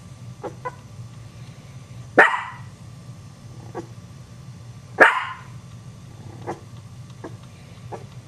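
A dog barks twice, two loud single barks about three seconds apart, with fainter short sounds between them and a steady low hum underneath.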